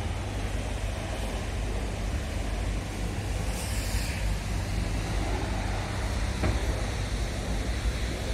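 Scania R500 tractor unit's 13-litre inline-six diesel engine idling with a steady low rumble.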